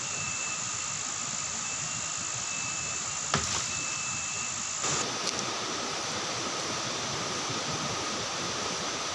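Steady forest insect chorus: a high continuous buzz over a hiss, with fainter lower tones coming and going. A click sounds a little over three seconds in. About five seconds in, the high buzz stops and a broader hiss takes over.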